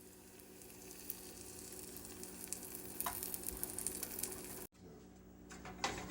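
Pancake batter sizzling in a hot frying pan, a steady hiss that slowly grows louder and drops out for an instant just before the end. A few light clicks of a utensil follow near the end.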